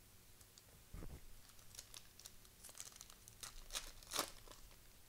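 Trading cards and their plastic and foil packaging being handled: a soft thump about a second in, then a run of crinkling and ticking, loudest near the end.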